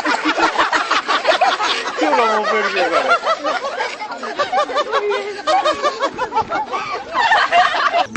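A dense chorus of laugh-like bird calls: many short arching notes overlap and repeat several times a second, then cut off suddenly near the end.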